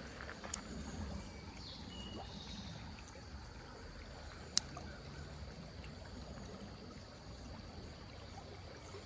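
Small creek running steadily, with two sharp clicks, one about half a second in and one about four and a half seconds in.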